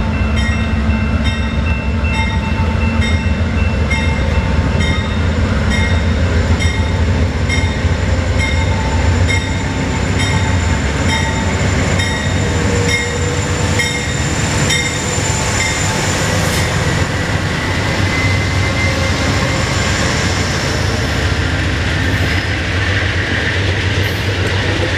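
An Amtrak GE P42DC diesel locomotive approaches and passes with its engine running. A bell rings in a steady rhythm of about two strokes a second and fades out as the locomotive goes by. Bi-level passenger cars then roll past with steady rail and wheel noise.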